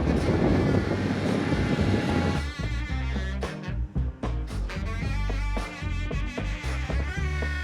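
A steady rushing noise, like wind on the microphone, gives way about two and a half seconds in to background music with steady bass notes.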